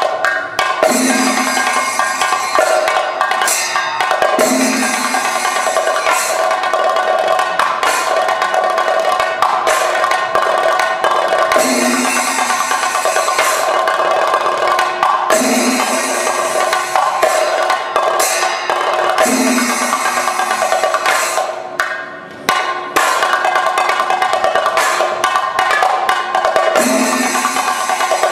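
Thayambaka: several chendas, Kerala cylindrical drums, beaten with sticks in fast, dense strokes over a steady ringing tone, with a deeper stroke recurring every few seconds. The playing thins briefly about three-quarters of the way through, then picks up again.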